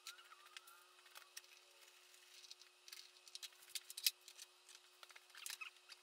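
Faint, scattered clicks, taps and rustles of hands handling small parts on a snowmobile's front end, with one sharper click about four seconds in.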